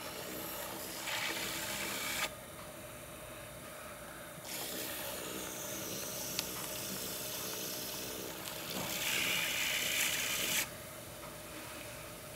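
Pottery wheel running with a steady hum while the clay on it is worked, giving long hissing rubs that start and stop sharply. The loudest stretch comes near the end.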